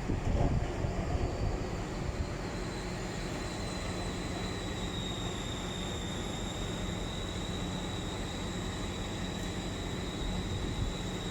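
Steady machine noise: a low hum under a constant rush, with a faint high whine that drifts slightly in pitch.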